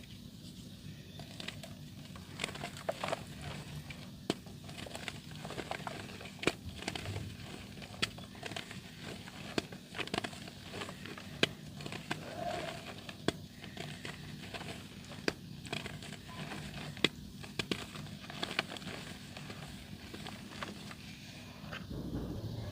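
Soft dirt crumbling in water, with irregular sharp crackles and crunches every half second or so.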